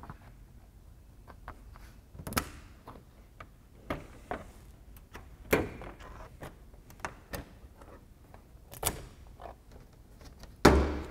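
Plastic push-pin retainers clicking and snapping as a trim removal tool pries them up out of a pickup's plastic radiator cover. There are about eight sharp clicks spread over the seconds, with the loudest, a fuller knock, near the end.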